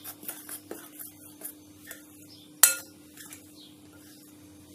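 Spoon stirring dry flour and cocoa powder in a glass bowl: soft scraping with light clinks against the glass, and one sharp clink about two and a half seconds in.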